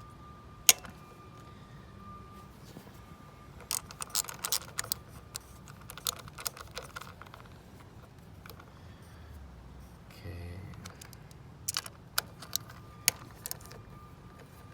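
Sharp metallic clicks and clinks in scattered clusters, from hand tools and parts being handled while ignition coils are taken off a car engine.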